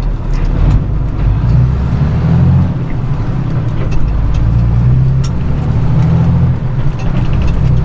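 Straight truck's engine heard from inside the cab as the truck pulls away from a stop and accelerates. The low engine drone swells twice and eases off in between.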